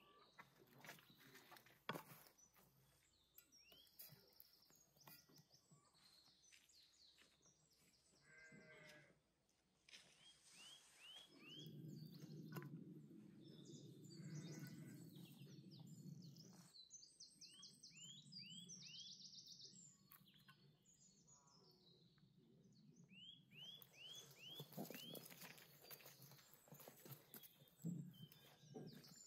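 Faint outdoor ambience: small birds chirping, in short runs of quick falling notes and trills, over soft clicks and taps of food being laid in a metal baking tray and pan.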